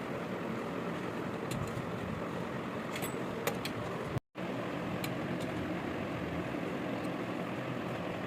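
Steady mechanical running noise with a low hum, with a few faint clicks over it; it cuts out for a moment about four seconds in.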